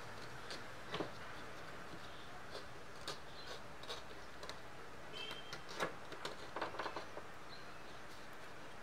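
Fine hand gouge scoring lines into the hard shell of a dried calabash gourd: scattered light scratches and ticks over a faint steady hiss, busiest in the second half.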